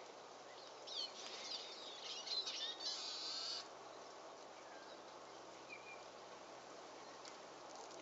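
High-pitched songbird calls and chirps for about two and a half seconds, ending in a short rapid trill, over a faint steady background hiss.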